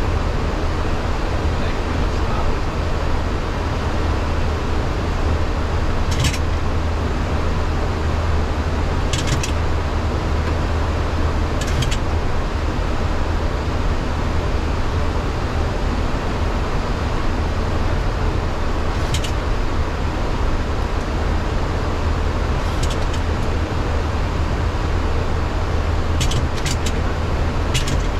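Steady flight-deck noise of a Boeing 737-800 in flight: a constant rush of airflow and engine noise over a low hum, with a few short, faint, high clicks scattered through it.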